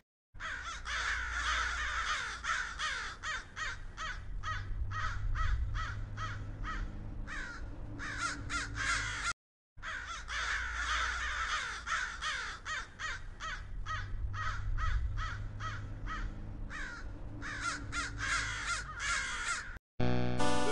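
Recorded crows cawing, many harsh overlapping caws that crowd closer together. The same stretch of cawing plays twice, with a brief cut to silence about nine seconds in.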